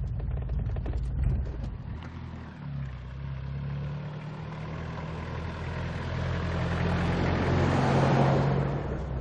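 Pickup truck's engine running with tyre noise on a gravel road, growing louder to about eight seconds in and then easing off.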